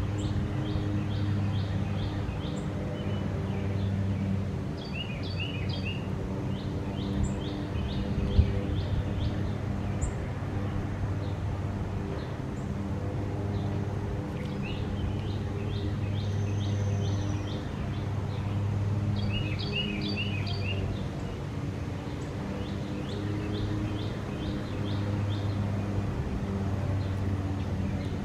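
A songbird chirping outdoors in repeated bouts of quick high notes, several a second, each bout lasting two or three seconds. Underneath runs a steady low droning hum that swells and fades every second or two.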